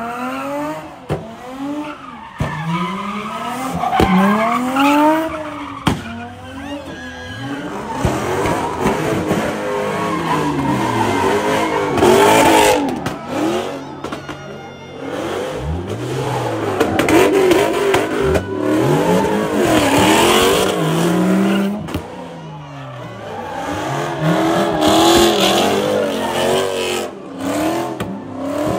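Car engine revving up and down again and again, with tires squealing and skidding on the pavement. The revs rise in quick repeated pulls at the start, and later the pitch swings are slower and overlap.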